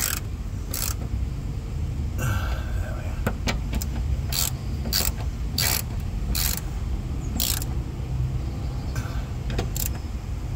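Ratchet spanner clicking in short bursts, roughly one every half second to second, as the rear axle mounting bolts are snugged up one at a time; a steady low hum runs underneath.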